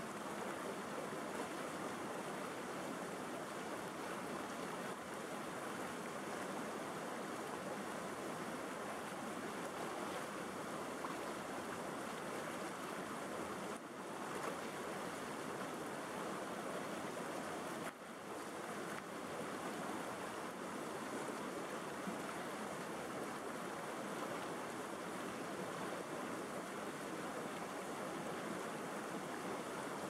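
River rapids: whitewater rushing over rocks in a steady, even rush of water that dips briefly twice near the middle.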